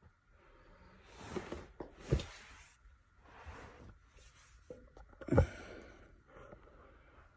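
A person's breathy puffs and sniffs close to the microphone, a few times, the sharpest about two seconds in and the loudest about five seconds in, over a faint steady high hum.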